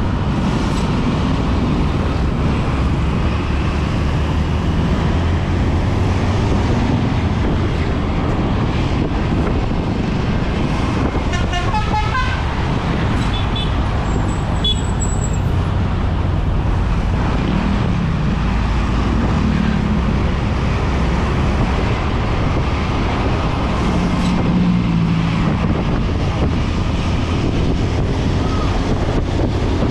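Intercity bus running along the road, with steady engine and road noise, and its Basuri telolet horn, a multi-note musical bus horn, playing a short tune about halfway through.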